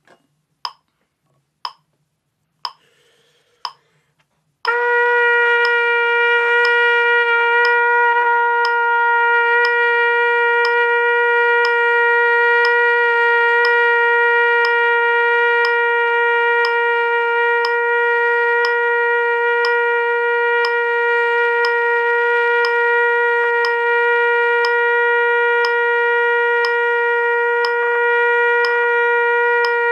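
A metronome clicks about once a second. About four and a half seconds in, a trumpet comes in on a single long note, the written C of a long-tone exercise, and holds it steady and unbroken.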